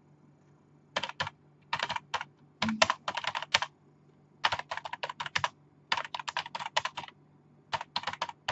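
Typing on a computer keyboard: quick runs of key clicks in several bursts with short pauses between them, starting about a second in.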